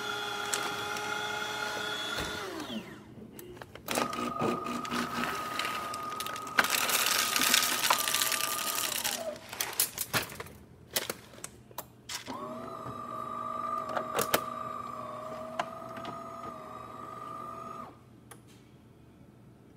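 DeLonghi Magnifica S super-automatic espresso machine running through its cycle. Its motor and pump whine in three stretches: the first winds down, the second has a harsher noisy part near its end, and clicks and knocks fall between them. The machine stops near the end.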